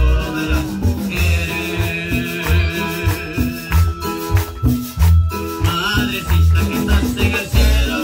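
Live amplified church worship music with a steady beat, heavy bass pulses and a rattling percussion shaking along in rhythm.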